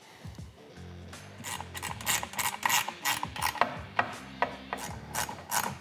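Hand ratchet wrench clicking as a bolt is tightened on a metal mounting bracket. It starts about a second and a half in, then runs as a quick, regular run of about four or five clicks a second.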